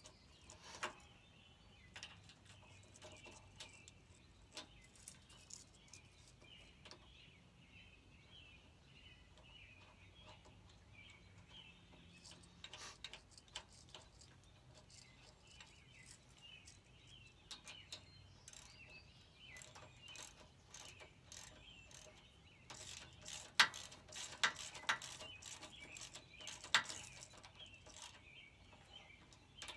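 Hand ratchet with a half-inch socket clicking in short runs as a bolt is tightened, the clicks loudest and most frequent near the end. Birds chirp faintly in the background.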